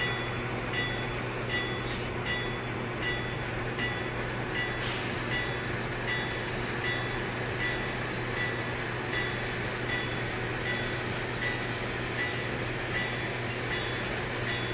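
Onboard sound decoders of BLI Paragon HO-scale Union Pacific AC6000 model diesel locomotives, played through the models' small speakers. A diesel engine runs steadily at low speed while the locomotive bell rings evenly, about once every 0.8 seconds.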